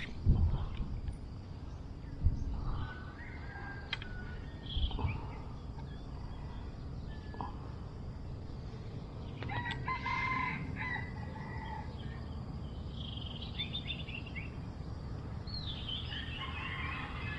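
A rooster crowing once, about ten seconds in, with smaller birds chirping later. A few low bumps come in the first five seconds.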